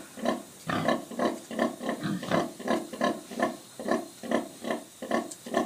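A nursing sow grunting rhythmically, short low grunts about three a second, the nursing grunts that go with milk let-down to her suckling piglets.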